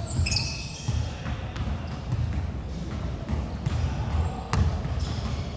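Basketball game on a hardwood court: the ball bouncing and thudding irregularly, with short high sneaker squeaks, in a large hall.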